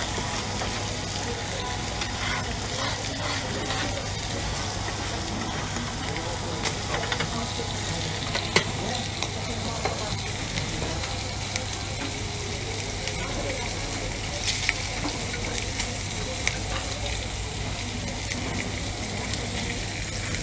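Slices of meat sizzling steadily on a hot flat-top griddle as they finish cooking, with a few sharp clicks, the loudest about eight seconds in.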